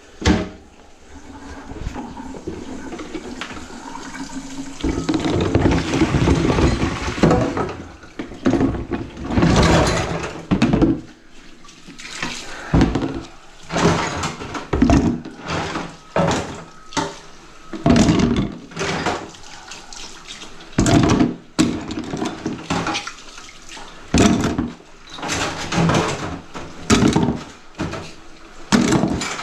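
Water in a kitchen sink whose drain is clogged with grease. A steady rush of running water builds over the first several seconds. After that comes a long series of separate splashing surges, roughly one every second or two.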